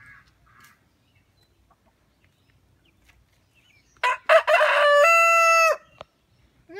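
Rooster crowing once about four seconds in: a ragged start, then a long held final note.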